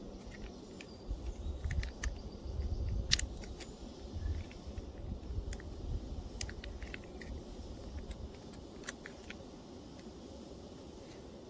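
Light clicks and crinkles of a clear plastic bag being handled and opened by hand, over a low rumble that swells in the first half.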